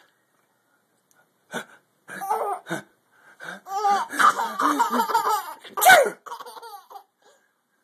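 A person sneezes sharply about a second and a half in, followed by a few seconds of laughter that rises and falls in pitch, loudest near the end.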